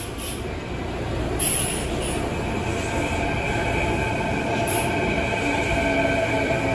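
Electric commuter train pulling into the platform: short high-pitched squeals in the first two seconds and again near five seconds, then a steady whine of several tones that falls slowly in pitch as the train slows, over a low rolling rumble that grows louder.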